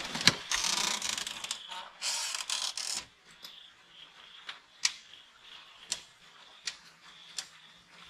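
Two bursts of rustling, scraping noise, then sharp clicks about once a second over a faint, steady high tone.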